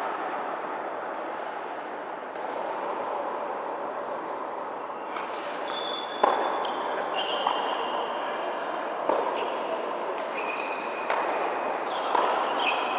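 Tennis rally on an indoor hard court: a ball struck by rackets and bouncing, sharp pops a second or two apart with the loudest about six seconds in, over the steady background noise of the hall. Short high squeaks of shoes on the court come in the second half.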